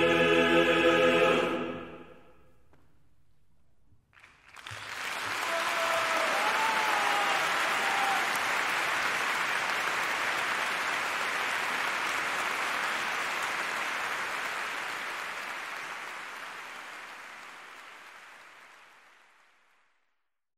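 A male chorus with piano holds its final chord, which dies away about a second and a half in. After a short hush, a concert hall audience breaks into applause about four seconds in. The applause holds steady, then fades out near the end.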